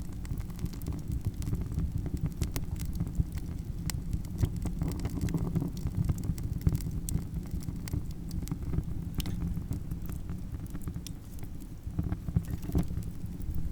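Campfire crackling: irregular sharp pops and snaps of burning wood over a steady low rumble of flames.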